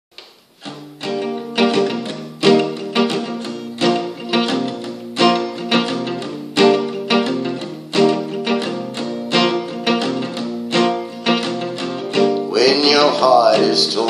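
Acoustic guitar with a capo strummed in a steady rhythm, about two strums a second, playing a chord intro. Near the end a man's voice comes in singing over it.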